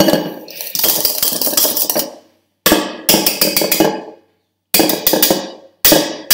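Wire balloon whisk beating cream by hand in a stainless steel bowl, the wires clattering rapidly against the metal in several bursts of strokes with short pauses between. The cream is being whipped into chantilly.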